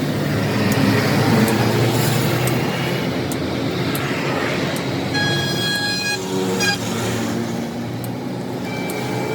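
Road traffic running past steadily, with a vehicle horn sounding for about a second roughly five seconds in, followed by a couple of short toots.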